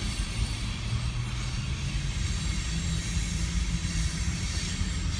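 Freight train of covered hopper cars rolling past: a steady low rumble with wheel and rail noise.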